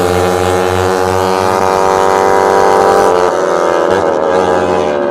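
Suzuki Raider 150 carburetted motorcycle engines racing at high revs, a loud, steady engine note whose pitch dips slightly twice, about one and a half and three seconds in.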